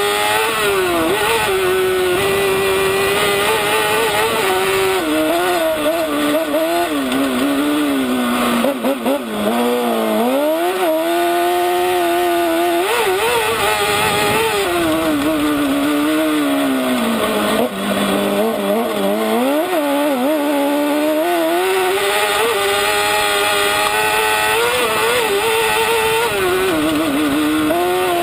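Kart cross racing buggy's engine heard from the cockpit under race load, its revs rising and falling constantly through the gears and corners, with two deeper drops in revs about nine and eighteen seconds in.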